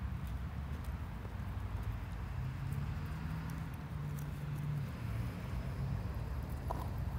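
Husky gnawing on a large femur bone, its teeth giving faint clicks and scrapes on the bone. Under it runs a steady low rumble, with a low hum that swells in the middle.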